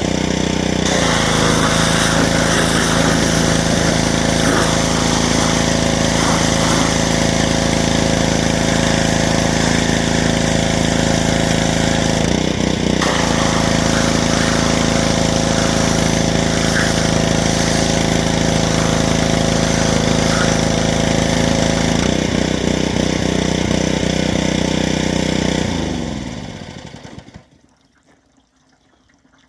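Pressure washer's small engine running steadily while spraying, its note shifting a few times, then winding down in pitch and stopping near the end.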